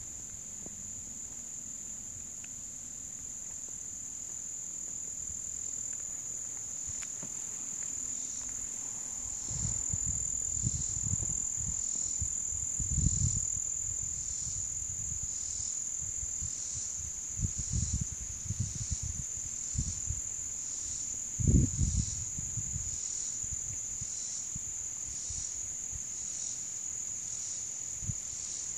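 Steady high-pitched chorus of insects, with a rhythmic pulse a little more than once a second. A few louder low thumps and rumbles sound around the middle.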